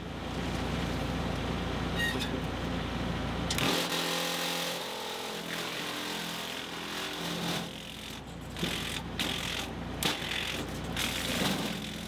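Tractor PTO-driven wood chipper running while a branch is fed into it. The first seconds are a steady machine hum. In the last third there are repeated sharp cracks and knocks as the branch is chipped.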